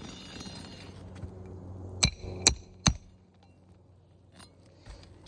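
Three sharp hammer blows in quick succession, each with a short metallic ring, typical of a hammer driving a roofing nail through a shingle. A soft rustle comes before them.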